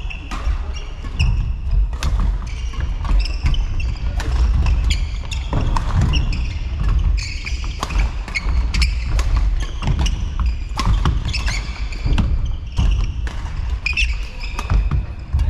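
Badminton rally: rackets striking the shuttlecock in a string of sharp cracks, with shoes squeaking on the court floor and the rumble of a large hall behind.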